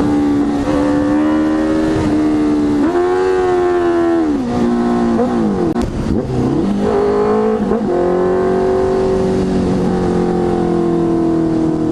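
Honda CB650F inline-four engine running loud through a Jeskap GP2 R full exhaust system. The revs rise and fall several times, dropping sharply around five or six seconds in, then hold fairly steady.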